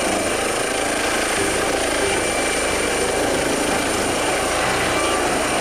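Eurocopter EC135 air ambulance helicopter lifting off into a hover: steady rotor noise with an even, high turbine whine over it.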